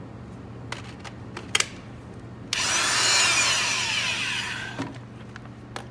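A few light clicks, then a cordless power drill is run on a battery adapter: it starts abruptly about two and a half seconds in, runs for about a second, and winds down after the trigger is released.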